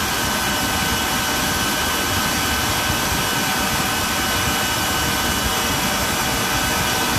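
Electric stand mixer running steadily at high speed, its motor whining with a steady high tone as the whisk beats cream cheese and heavy cream into a thick cream.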